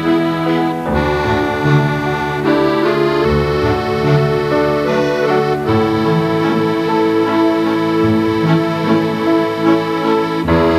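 Instrumental background music of held chords that change every second or two.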